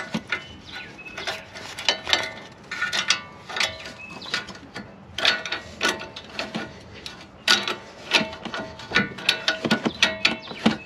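Ratchet wrench with a 21 mm socket clicking in short, irregular strokes as it loosens the front sway bar end-link nut, with metal tool clinks.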